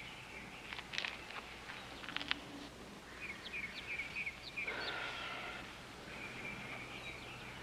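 Faint outdoor ambience: small birds chirping over a low steady hum, with a couple of soft clicks.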